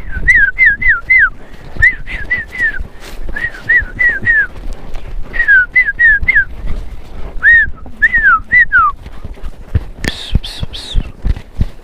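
A person whistling to drive cattle: short, sharp whistled notes that rise and fall, in quick runs of three to five, repeated again and again. Horse hoof thuds sound underneath, and a few higher notes come near the end.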